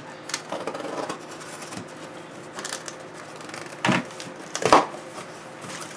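A cardboard shipping box being cut and pulled open by hand. Several short bursts of scraping and rustling, the loudest a sharp snap about three-quarters of the way through.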